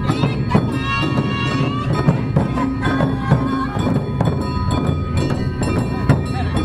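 Music with percussion strikes and held tones.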